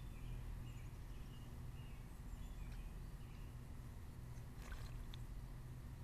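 Faint, short chirps of small birds in the background over a steady low outdoor rumble, with one brief burst of rustling noise about three-quarters of the way through.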